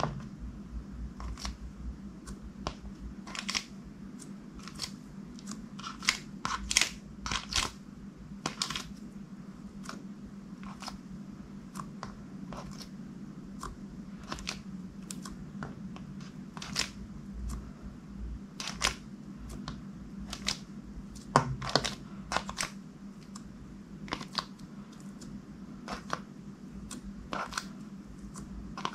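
Glossy clear slime being mixed and squeezed by hand, giving off irregular sticky clicks and pops, sometimes several a second.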